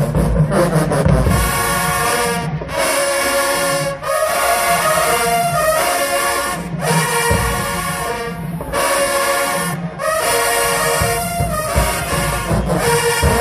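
HBCU marching band brass section, trombones and trumpets, playing loud held chords in phrases of about one and a half to three seconds, with short breaks between them.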